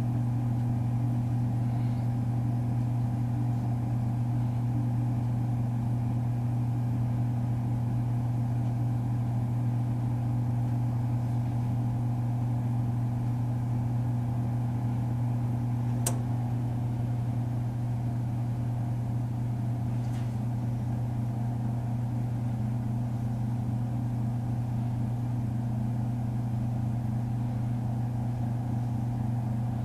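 Toaster oven running while baking a circuit board for solder reflow: a steady low hum, with a single sharp click about halfway through.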